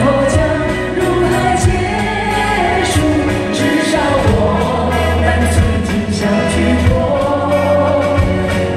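Live song performed by a woman singing into a microphone, backed by a band with bass and a steady drum beat with cymbals.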